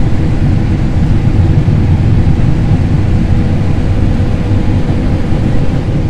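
Combine harvester running under load while harvesting corn: a loud, steady low rumble of the engine and threshing machinery, with a faint steady hum above it.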